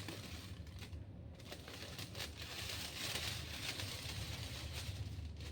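Faint rustling of handled hair-dye packaging, with a soft hiss that swells from about two seconds in, over a steady low hum.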